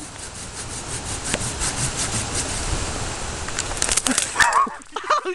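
Hand saw cutting through a thin sapling trunk with rapid back-and-forth strokes, about four or five a second.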